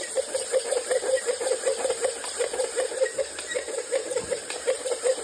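WAVEGO quadruped robot dog walking on a wooden floor: its leg servos buzz in a steady rhythm of about four pulses a second.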